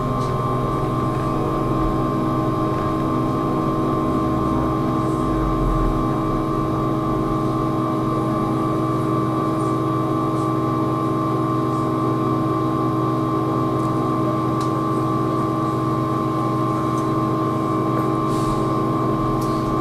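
Trolleybus running on its electric equipment: a steady electrical whine made of several held tones over a low hum, with no engine. It keeps on unchanged as the trolleybus slows and stands.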